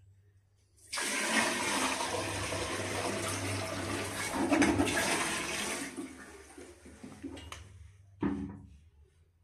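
Water from a bucket poured into a newly set toilet bowl and flushing down the drain, a steady rush that starts about a second in and dies away after about six seconds; a short knock near the end. It is a leak test of the fresh wax ring seal under the bowl.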